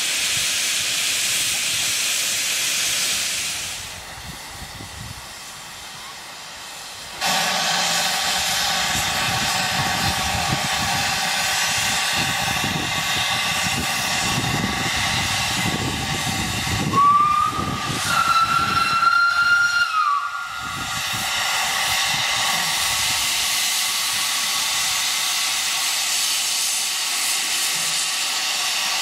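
Narrow-gauge steam locomotive hissing steam steadily. The hiss drops away for a few seconds, then comes back sharply. Past the middle it gives one whistle blast of about three seconds, which rises briefly in pitch at the start.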